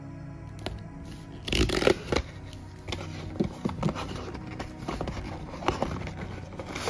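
Cardboard Magic: The Gathering bundle box being handled and opened: hands scraping and rustling against the box, with the loudest scraping about a second and a half in and shorter scrapes and clicks after. Soft background music runs underneath.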